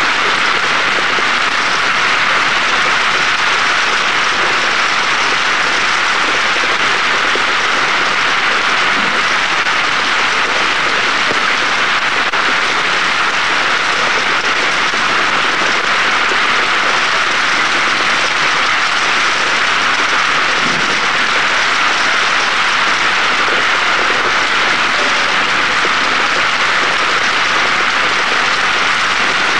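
Steady rain falling, a dense even hiss with no break.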